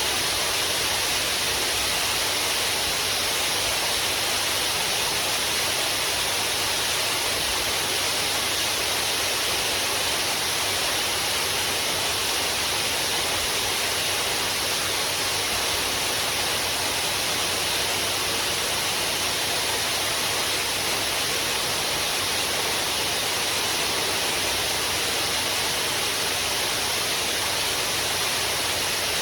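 Waterfall: a steady, even rush of falling water, hissy and bright, with no change in level.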